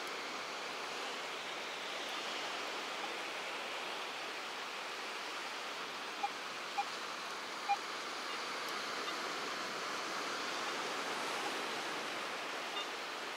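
Ocean surf washing steadily on the beach. About six to eight seconds in, three short beeps from a Garrett AT Pro metal detector sound.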